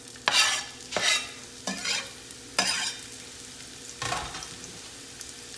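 Diced onion dropped into hot vegetable oil in a frying pan, sizzling, with about five sharp taps and spatters as more pieces go in, the last about four seconds in.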